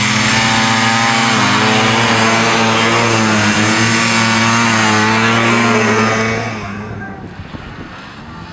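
Two-stroke snocross racing snowmobile running at high revs as it climbs toward the microphone, its pitch dipping and rising twice with the throttle. The engine sound falls away quickly about six and a half seconds in.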